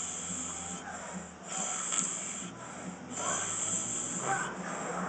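A man snoring in his sleep, one noisy breath after another.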